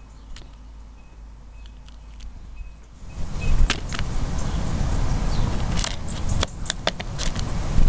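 A great tit landing on a plastic feeding tray close to the microphone and pecking at sunflower seeds: a run of sharp taps and clicks from about three seconds in, over a low rumbling noise that starts at the same moment.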